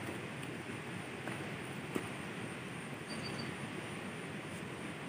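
Steady outdoor background noise with no clear single source, and one faint click about two seconds in.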